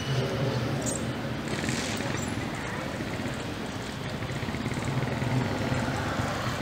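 A motor vehicle's engine running steadily nearby, a low hum under outdoor background noise.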